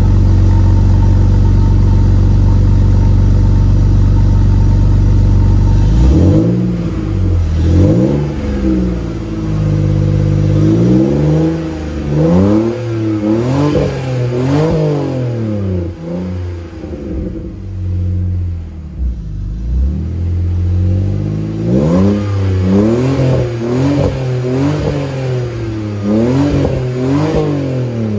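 BMW E46 sedan's stock M54 straight-six through an E46 M3 quad-tip rear exhaust section. It runs at a steady speed for about six seconds, then is revved again and again in quick throttle blips, the pitch rising and falling with each, with a short lull in the middle.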